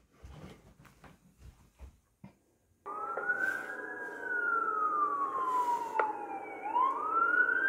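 Fire truck siren wailing, heard played back from a recording on a computer. After a few faint clicks it starts about three seconds in, rises, slowly falls, and rises again near the end.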